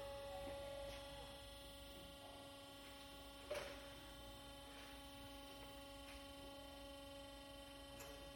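Faint steady hum made of several fixed tones, with a single sharp click about three and a half seconds in.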